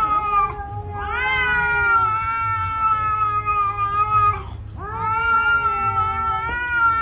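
Cat yowling at another cat in a standoff: two long, wavering yowls, each rising at the start and then held for about three seconds, with a short break between them. This is a warning yowl.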